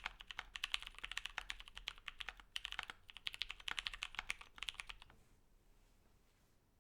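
Typing on a KBDFans D65 gasket-mount keyboard with lubed and filmed FFFF tactile switches and PBT keycaps: rapid keystrokes in bursts, stopping about five seconds in.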